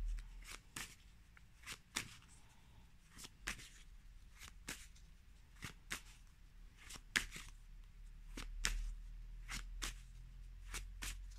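A deck of tarot cards being shuffled by hand: short, irregular card snaps and slides, about one or two a second.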